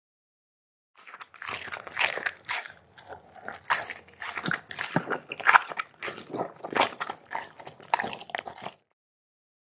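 A dog eating, chewing and crunching food in quick irregular bites, with wet mouth clicks; it starts about a second in and stops abruptly near the end.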